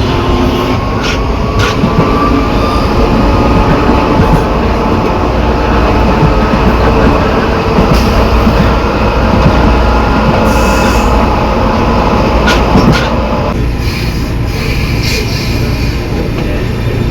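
Metro train accelerating: the traction motor and inverter whine rises slowly in pitch over a low, steady growl from car G256's reduction gearbox, an unusual gearbox growl that the uploader attributes to the gearbox itself. A few short clicks sound along the way, and the whine drops away about thirteen seconds in.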